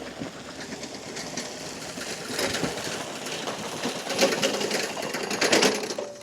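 Remote-controlled tracked mower with its dozer blade down pushing gravel: the machine running with a dense crunching and scraping of gravel under the blade and tracks, growing louder, then cutting off suddenly near the end.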